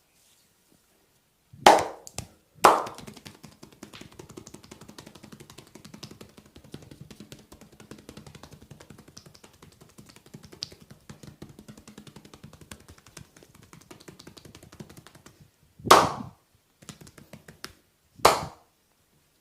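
Massage on a bare back: two loud slapping hits about a second apart near the start and two more near the end, with a long run of quick, light tapping and rubbing on the skin between them.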